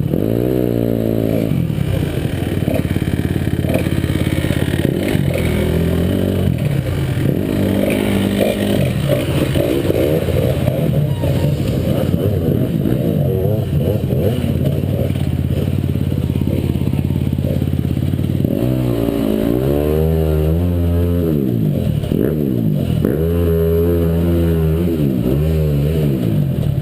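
Off-road motorcycle engine running close by. It revs briefly at the start, holds a steady note through the middle, then is revved up and down in a few swells near the end.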